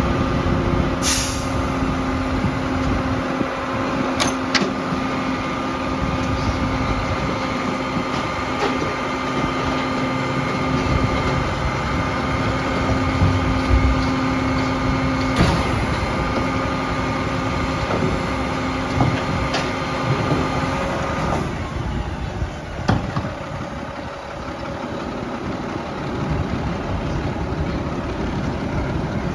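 Mack LR garbage truck running with a steady hydraulic whine that stops about 21 seconds in. Several sharp bangs and hisses from the cart arm and air brakes break in over it.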